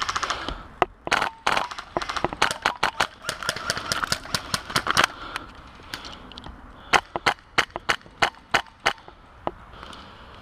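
Airsoft guns firing sharp single shots at an irregular pace: a dense run of them from about one to five seconds in, then scattered shots a couple of seconds later.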